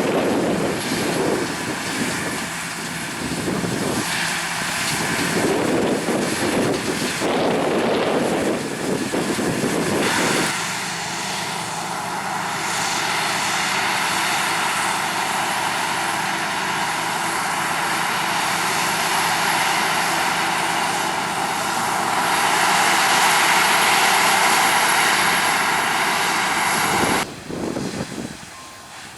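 Large diesel harvest machinery running in the field: a loud, steady engine and machine drone. It fluctuates at first, settles into an even note about a third of the way in, and drops off abruptly near the end.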